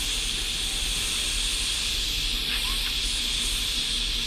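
Gas blowtorch flame hissing steadily while it is held on a diesel heater burner to burn the carbon out of it.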